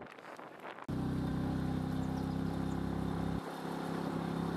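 Motor vehicle engine running steadily at a constant speed with a fast, even pulse. It cuts in abruptly about a second in, and its deepest part drops away a little past the three-second mark.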